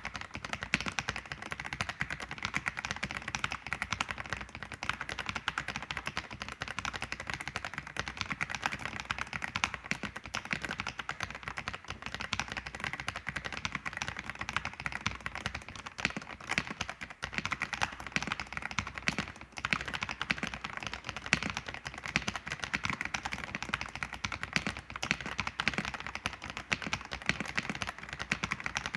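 Continuous typing on an ABKO AK100 mechanical keyboard with Baby White switches: a dense, steady clatter of keystrokes.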